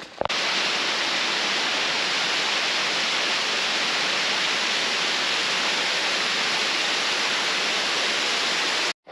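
Steady rush of flowing water, like a river running fast over rocks, starting and stopping abruptly.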